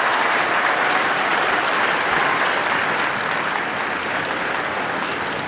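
Large audience applauding and cheering in a gymnasium at the end of the national anthem, easing off slightly toward the end.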